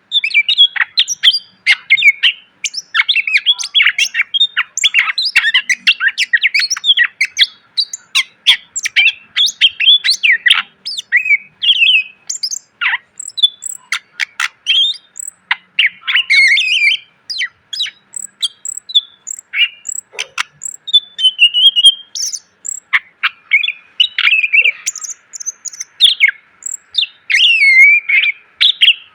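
Green leafbird (cucak ijo) singing a fast, unbroken song of varied chirps, whistles and sharp, shot-like notes, packed with mixed phrases.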